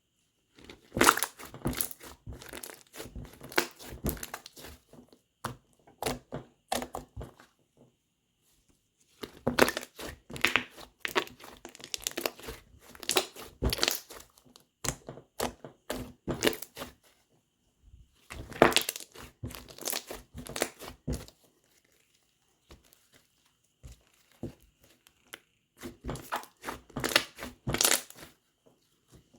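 Slime being squeezed and worked by hand, giving off dense crackling and popping clicks in four spells with short silent pauses between them.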